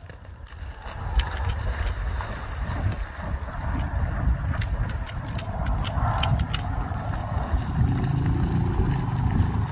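Wind buffeting the phone's microphone: a loud, gusting low rumble that comes in about a second in and keeps up.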